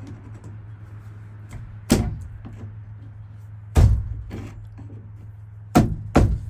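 Sharp knocks from prying the retaining clip off the lower end of a worn pickup-cap gas strut: single knocks about a second in and about two seconds later, then two close together near the end. A steady low hum runs underneath.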